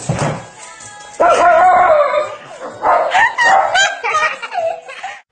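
A dog vocalizing loudly, starting suddenly about a second in, in a string of calls that rise and fall in pitch.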